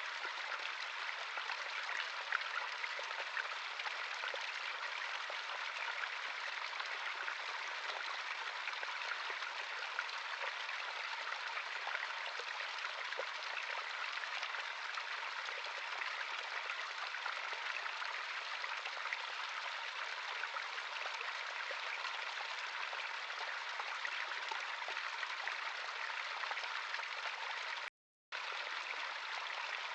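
Running water of a small stream: a steady, even rushing with little bass. It cuts out completely for about half a second near the end, then carries on unchanged.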